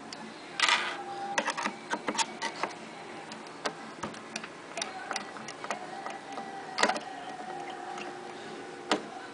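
Irregular light metal clicks and short scrapes as a screwdriver works the screws of a Juki DDL-5550 needle plate, with the plate handled as it is taken off. The machine itself is not running.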